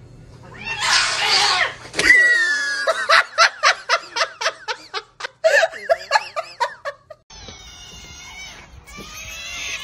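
A person laughing hard in quick rhythmic bursts for about five seconds, after a short hissy burst of noise about a second in. Near the end a different sound takes over: a chorus of high, squeaky chirps over a rushing background.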